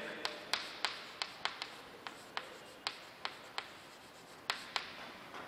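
Chalk writing on a chalkboard: a string of irregular sharp taps as the chalk strikes the board, with a faint scratch between them, the taps thinning out toward the end.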